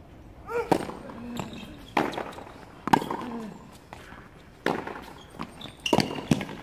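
Tennis serve and rally on a hard court: sharp pops of racket strings striking the ball and the ball bouncing, coming about a second apart.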